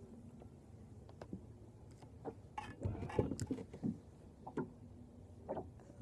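Scattered light clicks and knocks, busiest about halfway through.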